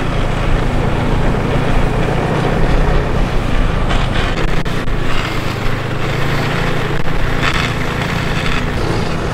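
Snowmobile engine running steadily while riding over snow, a continuous engine hum over a rushing hiss.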